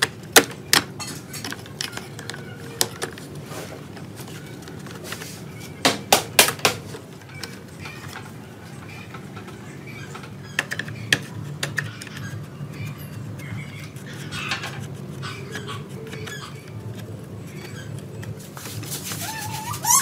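Scattered clicks, knocks and rattles of hands pulling apart a dirt-caked disc player's parts: wires, a dusty circuit board, and the disc drive with its ribbon cables. The clicks come in a cluster about six seconds in and several more between ten and twelve seconds. Right at the end a dog starts whimpering.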